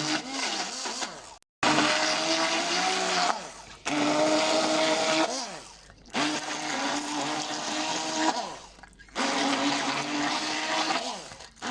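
Electric hand blender grinding boiled dried figs and garlic with olive oil and honey into a thick paste. It runs in about five short pulses of a couple of seconds each, the motor's hum sliding down in pitch as it winds down between pulses.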